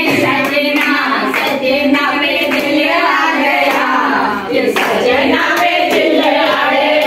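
A group of women singing a song together, clapping their hands along with it.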